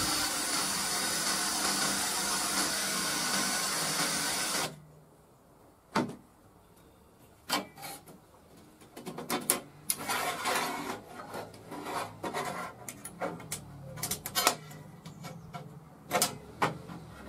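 Total 20V cordless drill running as it bores into a 6 mm steel plate, stopping suddenly about five seconds in. After that come scattered metallic clicks and knocks as a steel straightedge and pins are handled on the plate.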